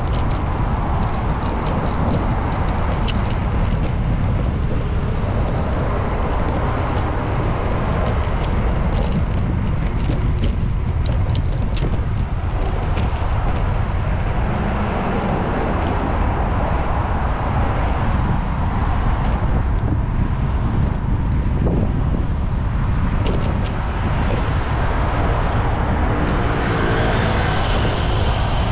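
Street traffic and road noise picked up by a bicycle-mounted GoPro Hero8 while riding: a steady rumble of wind on the microphone, passing cars, and scattered light clicks.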